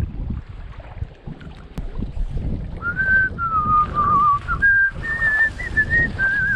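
A person whistling a tune, beginning about three seconds in: a clear line of held notes that step up and down and waver slightly. Wind rumbles on the microphone underneath.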